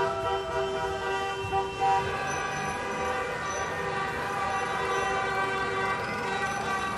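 Many car horns honking at once in long, overlapping blasts, the celebratory honking of football fans in the street. The mix of horn pitches shifts about two seconds in as some horns stop and others start.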